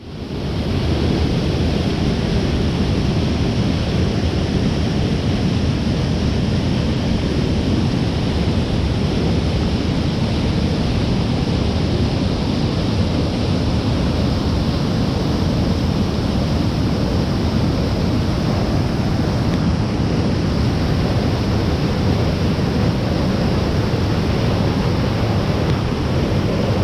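Mountain stream in flood after heavy rain, its water rushing in a loud, steady roar that swells in over the first second.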